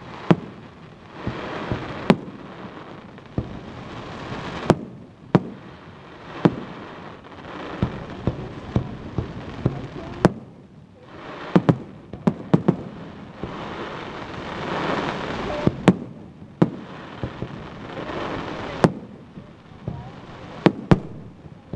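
Aerial firework shells bursting in a display: sharp booms at irregular intervals, some in quick clusters, over a rushing, crackling noise that swells and fades between them.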